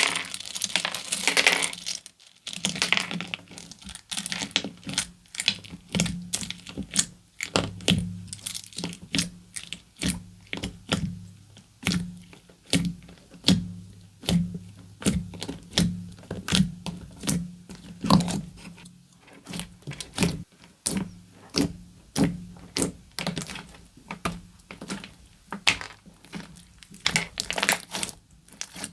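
Slime worked by hand, giving a long string of sharp, irregular clicks and pops, two or three a second, after a denser crackle in the first couple of seconds.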